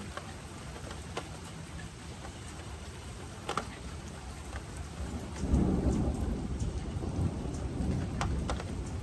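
Steady rain with a few sharp drip taps, then about five seconds in a low roll of thunder swells up and rumbles on.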